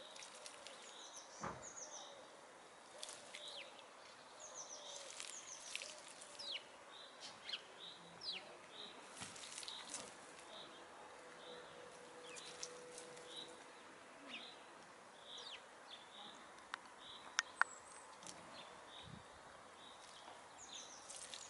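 Faint outdoor ambience of small wild birds chirping and twittering with quick high notes, while domestic hens scratch and peck in dry, stony soil, giving brief scratchy rustles and clicks. Two sharp clicks come close together about four-fifths of the way through.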